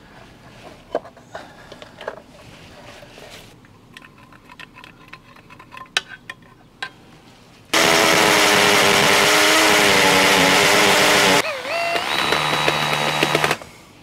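Corded electric drill boring into a brick wall. After several seconds of light clicks and taps, it runs loud and steady for about four seconds, dips in pitch as it slows, then runs again briefly before stopping.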